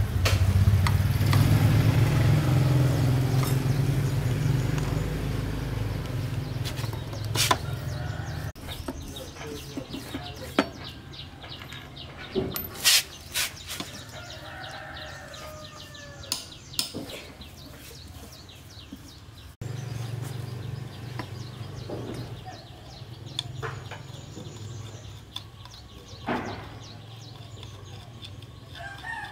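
A small engine running with a low, steady rumble that cuts off after several seconds. Then come scattered sharp metal clicks and knocks from hand tools, with chickens clucking now and then. The low engine sound comes back more faintly later on.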